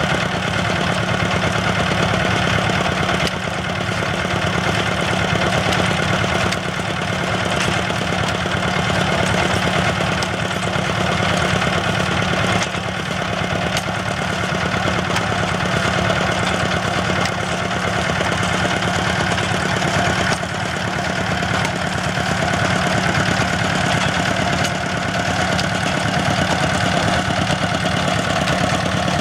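Engines of a tracked water-well drilling rig running steadily under load while the hole is drilled, with a few brief dips in level.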